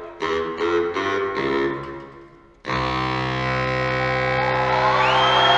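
Live music: a baritone saxophone riff of short repeated notes that fades out about two seconds in, then a sudden loud, sustained distorted tone that swells toward the end.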